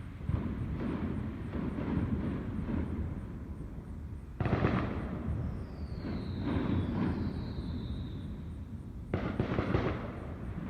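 Fireworks going off: a run of booms and crackles, then two sharp, loud reports about four and nine seconds in, with a thin whistle sliding down in pitch between them, over a low rumble.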